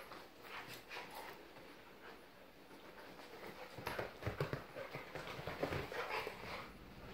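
Two dogs play-wrestling on a couch: scuffling of paws and bodies on cushions and blankets, with dog play noises, getting busier and louder from about four seconds in.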